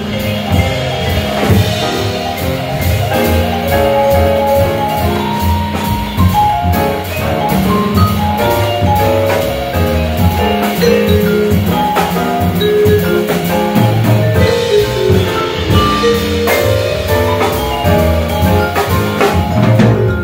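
Jazz combo playing: a vibraphone melody of quick, struck notes over walking upright bass and drum kit with cymbals.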